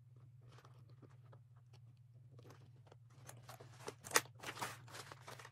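A fabric pouch and pressing pad rustling and crinkling as they are handled and pressed, getting busier and louder about three seconds in, with one sharper click, over a steady low hum.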